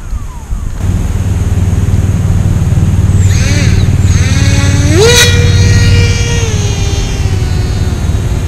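Small electric RC plane's pusher motor and propeller: a whine that climbs briefly around three seconds in, then jumps sharply up in pitch to full throttle about five seconds in as the plane is hand-launched, and holds, falling slightly in pitch as the plane climbs away. A steady low rumble runs underneath.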